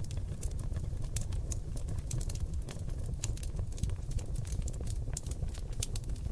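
Seasoned oak logs burning in a fireplace: a steady low rumble of flames with many sharp crackles and pops, several a second.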